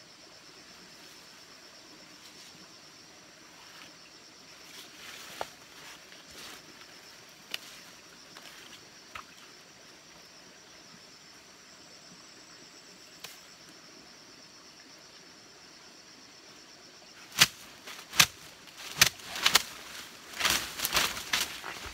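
Leaves rustling and a few small snaps as leafy branches are broken off. From about 17 seconds in comes a quick run of loud swishing whacks: a bunch of leafy branches swung hard to swat at a yellow wasp nest in a tree stump.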